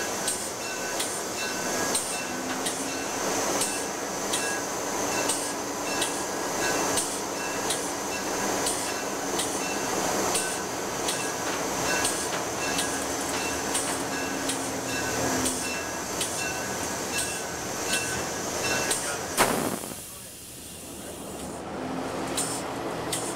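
Locomotive cab under way: steady running noise with a ringing strike repeating about one and a half times a second. Near the end a sharp clunk cuts in and the sound drops briefly before picking up again.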